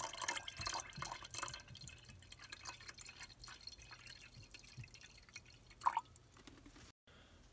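Vinegar poured in a stream into a glass beaker of water, splashing and trickling, loudest at first and thinning out as the pour goes on. A short knock comes about six seconds in.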